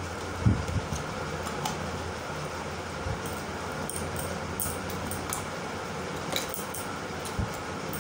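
Steady whirring hum of a room fan, with a few soft knocks and, midway through, a run of light high clicks from jewellery being handled.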